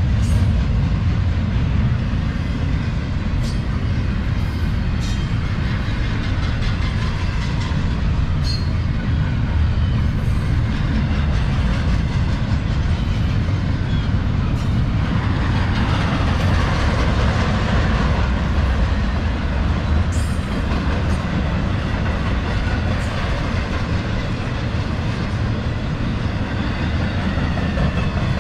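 Double-stack intermodal freight train rolling past: a steady low rumble and rattle of well-car wheels on the rail, with a few sharp clicks and a brighter hissing stretch of wheel noise about halfway through.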